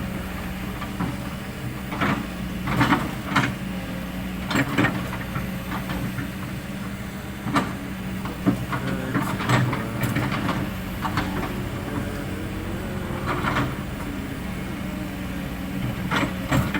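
Kobelco SK200 excavator's diesel engine running steadily under work, with scattered short knocks and scrapes from the machine as it digs and shapes the slope.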